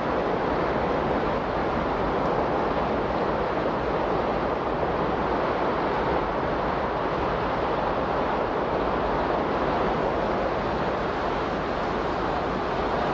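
Steady, even rushing noise with no rise and fall: the masking sound of a subliminal audio track.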